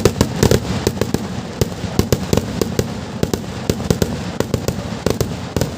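Festival fireworks barrage: a rapid, irregular string of sharp firecracker bangs, several a second, over a continuous rumble.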